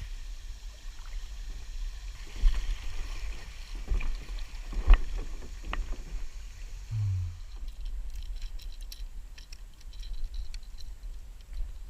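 Kayak on the water: several sharp knocks and bumps against the hull over a steady low rumble, with light clicking near the end.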